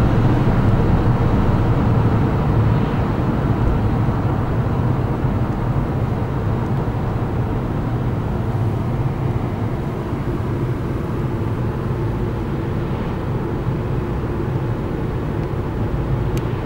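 Volkswagen Golf VI 2.0 TDI four-cylinder turbodiesel pulling under full acceleration at high speed, a steady low drone, easing slightly a few seconds in. A single sharp click near the end.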